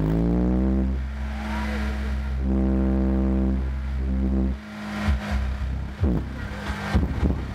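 Competition car-audio subwoofers playing deep bass tones at very high volume. A rising bass sweep at the start leads into steady low notes, and from about four and a half seconds in the bass turns choppy, with short hits and thumps.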